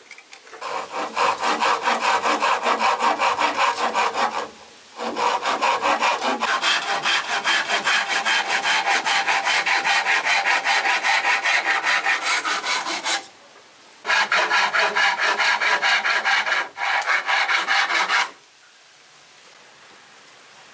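Wood being sawn by hand in quick, even back-and-forth strokes, in four runs broken by short pauses.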